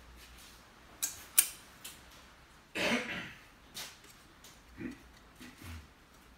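A paintbrush tapping and scrubbing on a canvas board and paper palette at an easel. There are two sharp clicks about a second in, a short louder rasp near the middle, and a few softer knocks later.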